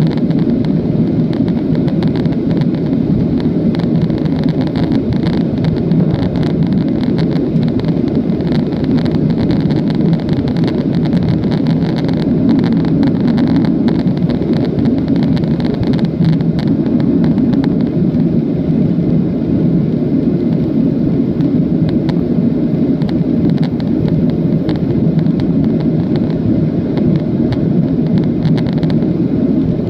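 Steady cabin roar of a Boeing 737-700 in flight: the CFM56 turbofans and the airflow over the fuselage heard from inside the cabin, an even, deep noise that does not change.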